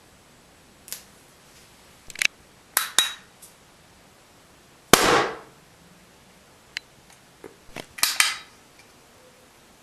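A series of sharp clicks and knocks from small hard objects being handled. The loudest, a snap about five seconds in, trails off over half a second, and a quick cluster of clacks follows near the end.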